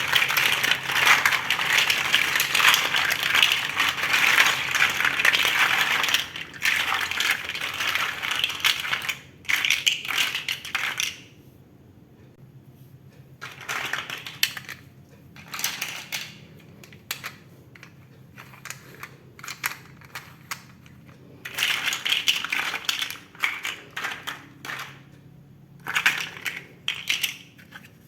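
Loose plastic Lego pieces clattering: a dense rattle for about the first six seconds, then shorter rattles and scattered clicks with quiet gaps between them.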